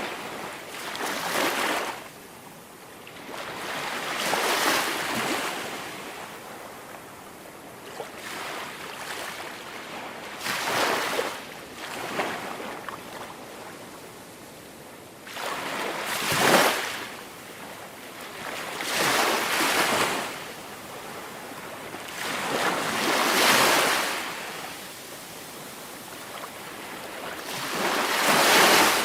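Small waves breaking and washing up onto a sandy beach. Each wash swells and fades, repeating every few seconds.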